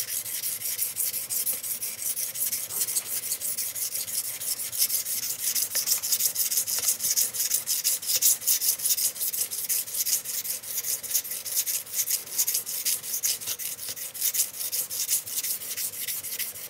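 Steel knife blade (CPM-M4) stroked quickly back and forth on a wet 30 micron diamond sharpening plate, a rapid run of high scratchy scrapes. The plate is refining the bevel at about a 2000 grit finish, and the scrape is becoming smoother and less coarse as it does.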